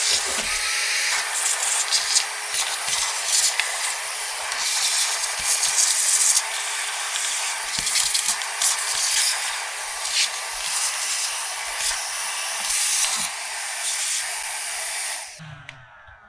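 Shop vac running with a steady whine, sucking metal shavings and dried coolant residue off a cold cut miter saw, with scattered clicks as bits go up the hose. It shuts off about fifteen seconds in.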